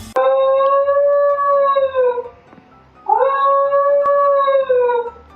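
A pet giving two long, drawn-out calls of about two seconds each. Each call holds one pitch and drops at the end.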